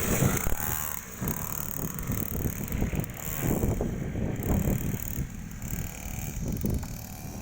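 Irregular mechanical clicking and knocking, a ratchet-like rattle with no engine running.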